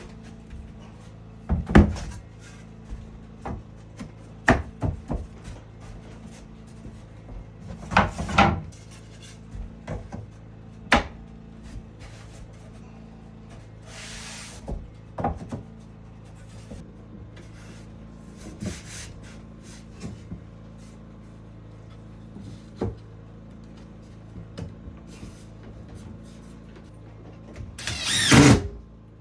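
Scattered knocks, taps and clatter of wood and tools being handled, with a louder burst of knocks about a third of the way in and a longer noisy scrape or rush near the end, over a faint steady low hum.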